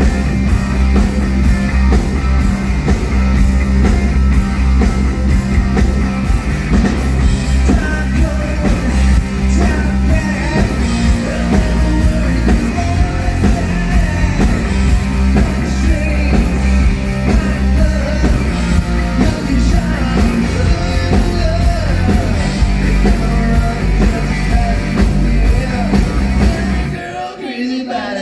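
Live rock band playing a song through the PA, with singing over drums, bass and guitar; the music cuts out briefly near the end.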